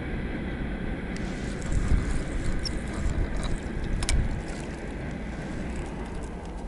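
Wind buffeting the camera microphone, a steady low rumble, with a single sharp click about four seconds in.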